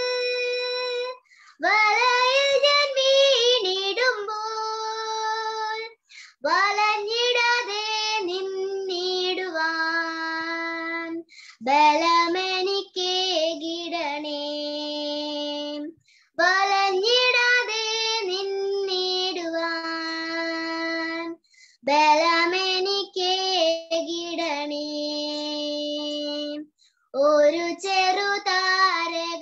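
A girl singing a Malayalam Christian song unaccompanied, in phrases of about five seconds, each ending on a long held note, with short silent breaths between them.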